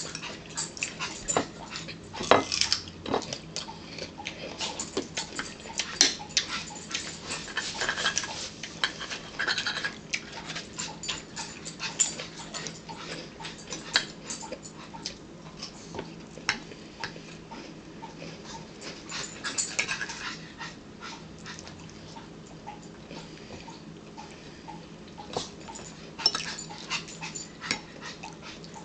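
A pet dog whining, over the many short crunches and clicks of eating: celery and crackers being bitten and a fork tapping a plate.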